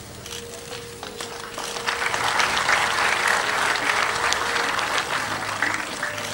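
Audience applause that swells about a second in, is loudest in the middle and eases off near the end.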